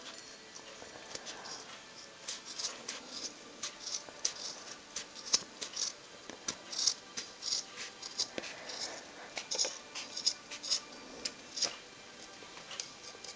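Scissors snipping repeatedly through folded felt, an irregular run of short crisp cuts.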